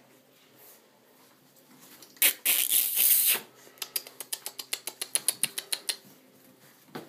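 Boston Terrier puppies scuffling at play: a loud rustle lasting about a second, then a quick run of sharp clicks, about eight a second, for a couple of seconds, and a single thump near the end.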